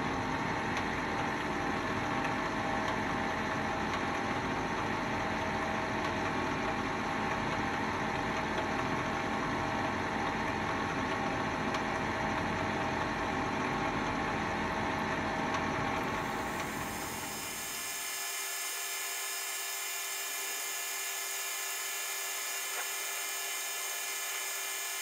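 Metal lathe running while turning a copper bar, a steady machine whine made up of several held tones. About 17 seconds in, the deep part of the sound drops away and it becomes thinner and higher.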